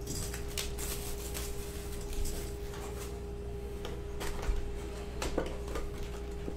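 Plastic shrink-wrap crinkling and tearing as it is stripped off a cardboard trading-card box, then the box's cardboard lid being pulled open, with irregular rustles and scrapes of handling.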